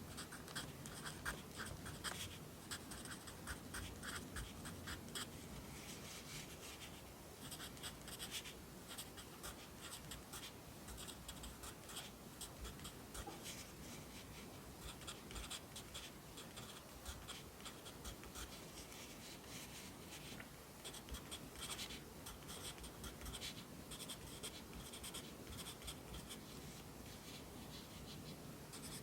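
Pencil writing Korean characters on paper: a steady run of short, quick scratching strokes with brief gaps between them.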